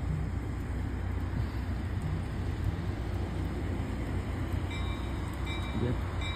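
Diesel locomotive engine running, a steady low rumble. About two-thirds of the way in, a faint, intermittent high ringing starts, a locomotive bell.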